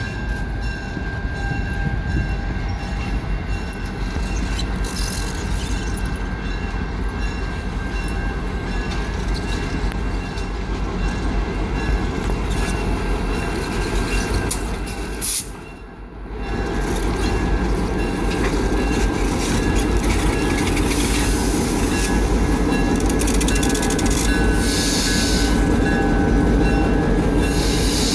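Aberdeen & Rockfish train rolling on the rails: a steady rumble of wheels on track with wheel squeal. The sound drops out briefly about sixteen seconds in, then comes back louder.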